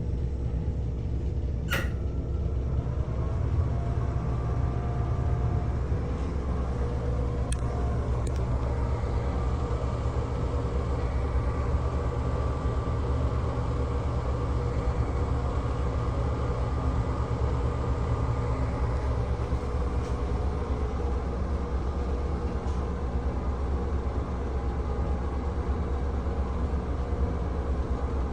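NuTone 696N bathroom exhaust fan running with a steady low hum and faint whining tones, its bearings worn and the fan caked with dirt. A sharp click sounds about two seconds in.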